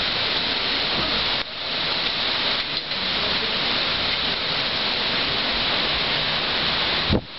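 Heavy thunderstorm rain falling in a steady, loud hiss. It breaks off just before the end, where low gusts of wind buffet the microphone.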